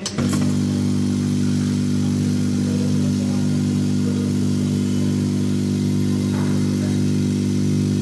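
Refrigerator compressor starting the instant mains power is switched on, then running with a steady hum.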